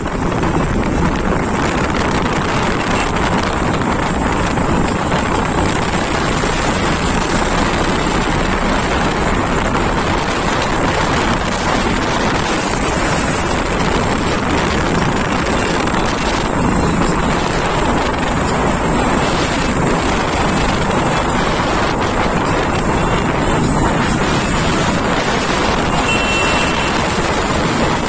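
Steady wind noise buffeting the microphone of a motorcycle cruising at highway speed, with engine and tyre noise mixed in underneath.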